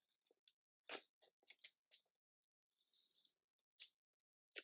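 Faint rustling and light clicks of fingers working at the backing paper on a stick-on paper craft cutout, with a brief scratchy rustle about three seconds in.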